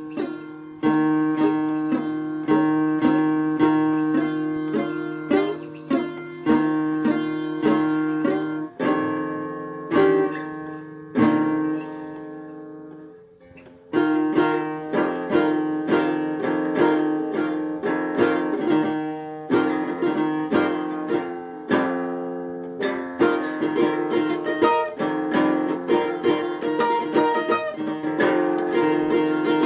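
Instrumental music on a plucked string instrument, notes picked in a steady rhythm over a sustained low note. It fades briefly about thirteen seconds in, then resumes.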